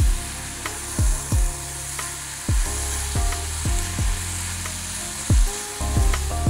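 Diced beef and onions sizzling in a frying pan as they are stirred with a spatula. Background music plays alongside, with deep drum hits that drop in pitch roughly once a second and are the loudest sounds.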